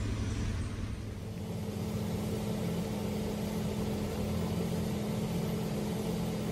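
Steady low machine hum, with a steadier, higher tone joining about a second and a half in and holding.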